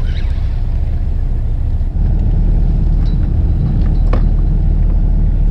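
Fishing boat's engine running with a steady low rumble that grows stronger about two seconds in, and a single sharp click about four seconds in.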